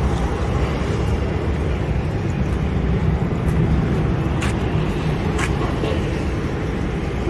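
Steady low rumble of airport apron noise from aircraft and ground equipment, with two brief clicks around the middle.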